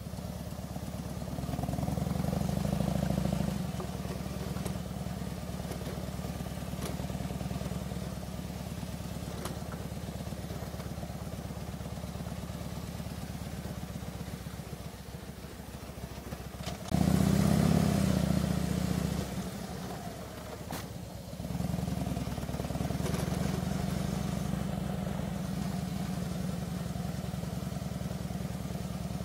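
Harley-Davidson touring motorcycle's V-twin engine running steadily at low road speed. About 17 seconds in the sound suddenly gets much louder for about two seconds, then drops away before the engine settles back to its steady run.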